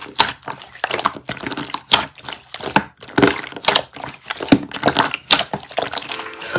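Slime being pressed and squished by hand, giving a dense run of irregular crackling, popping clicks.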